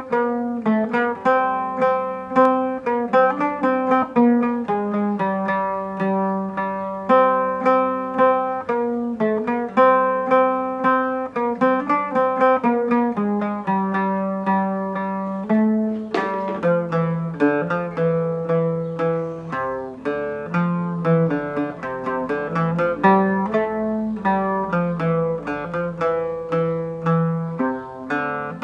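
Solo oud playing a melody in plucked notes, the picking turning faster and denser about halfway through.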